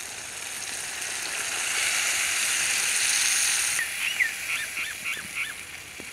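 Water poured into hot oil and masala in a steel pan over a wood fire, sizzling loudly, the sizzle building over the first three seconds and then dropping back suddenly. Near the end a bird gives a quick run of short chirps.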